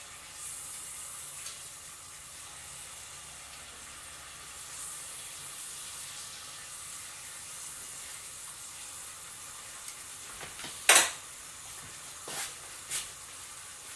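Unbattered potato slices sizzling in hot oil in an electric deep fryer, a steady hiss. A sharp click about eleven seconds in, and two lighter clicks after it.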